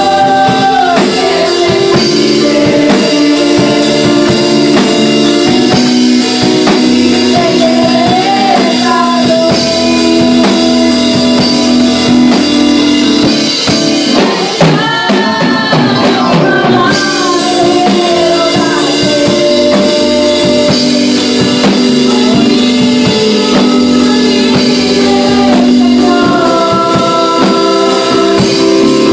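Young people and children singing a song together into microphones, backed by a live drum kit keeping a steady beat and a keyboard. The cymbals drop out briefly about halfway through.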